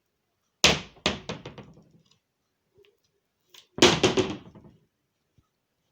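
Two bursts of loud banging about three seconds apart, each a hard knock followed by several quicker, fading knocks, like a door or something loose being struck and rattling.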